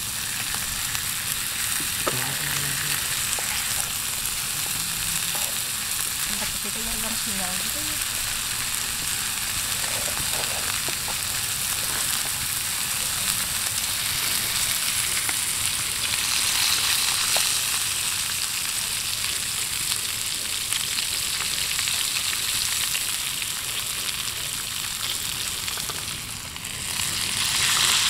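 Sliced fatty meat sizzling as it fries in a small aluminium camping pot on a portable gas stove, a steady hissing spatter. The sizzle dips briefly near the end and then swells louder.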